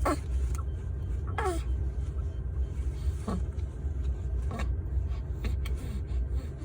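A baby making short little sounds that each drop in pitch, one right at the start and another about a second and a half later, then fainter ones every second or so, over a steady low rumble.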